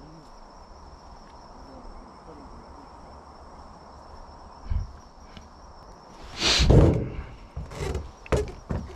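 Insects droning in one steady high note. A dull thump comes about five seconds in, a loud rustling knock about six and a half seconds in, and a few sharp clicks follow it.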